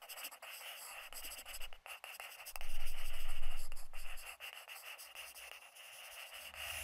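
Pen-on-paper scratching sound effect: a continuous run of quick, scratchy drawing strokes. A low rumble swells in about two and a half seconds in and fades out by about four and a half seconds; it is the loudest part.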